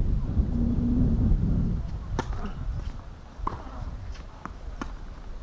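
Low rumble of wind on the microphone, then several sharp, separate taps of a tennis ball bouncing on the hardcourt while the receiver waits for the serve.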